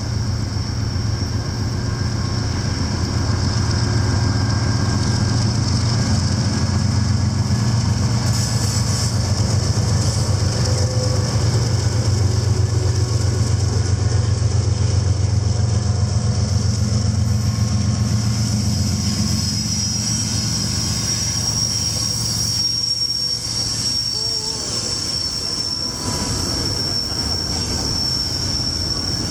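Departing intermodal freight train: diesel locomotive engines pass with a heavy low drone, then double-stack container well cars roll by, their wheels squealing steadily at a high pitch that grows stronger in the second half.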